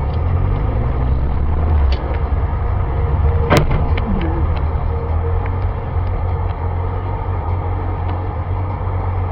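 A car's engine and road noise heard from inside the cabin: a steady low rumble, with one sharp click about three and a half seconds in.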